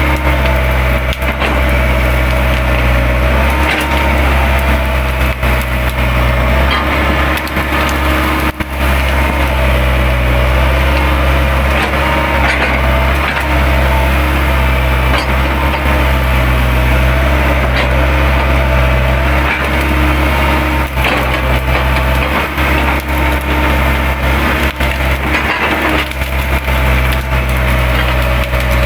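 Excavator diesel engine running steadily under load with a wavering hydraulic whine, while brush and branches crack and splinter repeatedly as the machine tears through the scrub.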